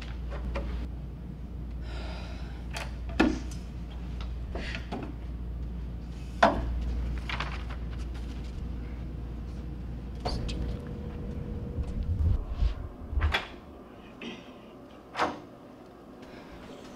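A series of separate knocks and clicks from movement and handling in a small room, loudest about three and six seconds in, with a cluster near the end. A low steady hum underneath drops away about eleven seconds in.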